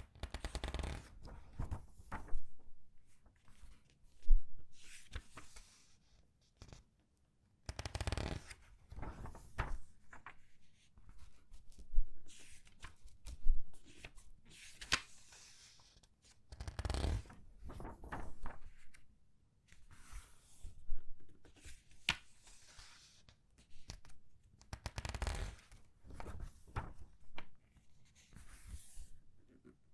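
Comic book pages being turned and squeezed by hand: bursts of paper rustling and crinkling every few seconds, with a few sharp crackles and a short quiet pause about six seconds in.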